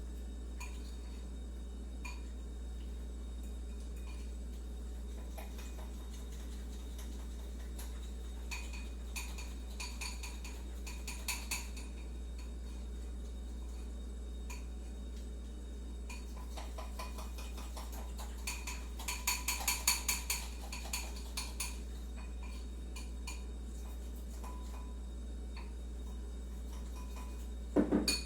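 Crockery and cutlery clinking in short runs of light strikes, one group about eight to twelve seconds in and a busier one around twenty seconds, then a louder knock near the end, over a steady low hum.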